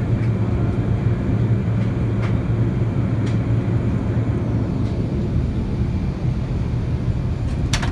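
Steady low drone of an airliner's cabin in cruise: engine and airflow noise heard from a window seat, with a strong low hum. A short click comes just before the end.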